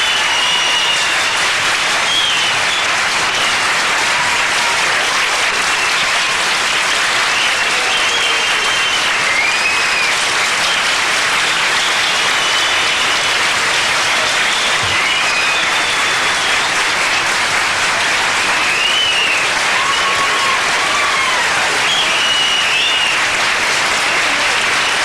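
Live audience applauding steadily, with scattered short high calls rising above the clapping.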